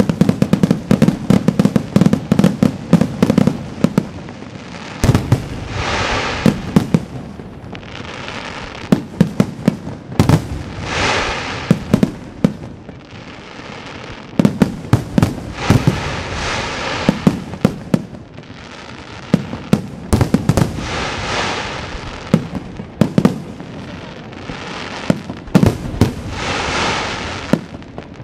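Aerial firework shells of a professional display bursting in rapid volleys of sharp bangs. The bangs are densest in the first few seconds. Between volleys come long swelling stretches of hiss as the glittering stars burn out.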